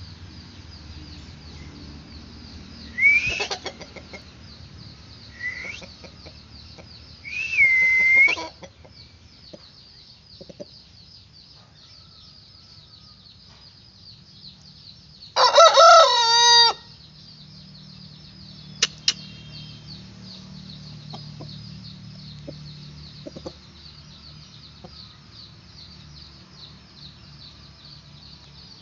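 Aseel rooster crowing once, a long crow about halfway through, which is the loudest sound. A few shorter rising calls come in the first third, over a steady high pulsing buzz.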